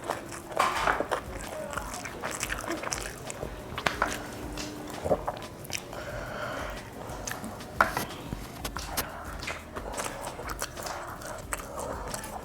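Eating close to the microphone: irregular bites and chewing, with scattered sharp clicks and crunches.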